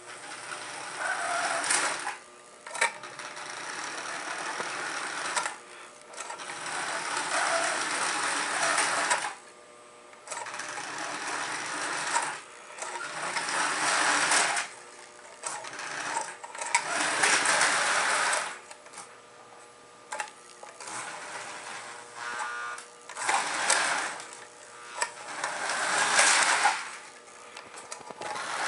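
1960s Marx Santa Fe toy electric train running around its metal track: the locomotive's motor whirs and the wheels rattle on the rails. The sound swells and drops away several times.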